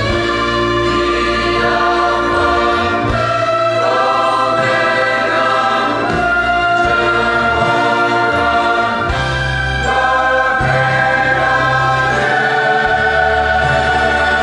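Mixed youth choir of men's and women's voices singing a Christian worship song in full harmony, with held chords that change every two or three seconds over low sustained bass notes.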